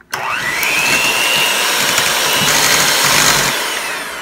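Electric hand mixer switched on, its beaters whisking raw eggs in a ceramic bowl: the motor whine rises in pitch as it spins up, runs steadily, then eases off near the end.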